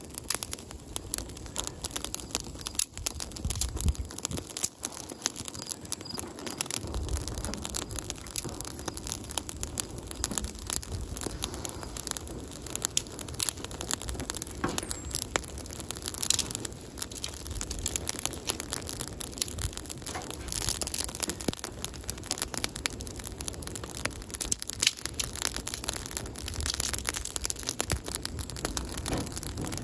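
Kindling fire of dry twigs and thin branches crackling as it burns, a dense stream of sharp snaps.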